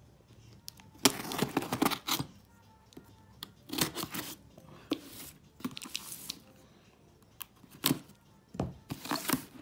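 Cardboard packaging being torn open and handled, in several short tearing and rustling bursts with quiet gaps between, the longest about a second in.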